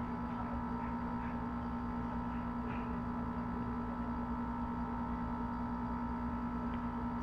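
Steady electrical hum with a low tone and several fainter higher tones, unchanging throughout.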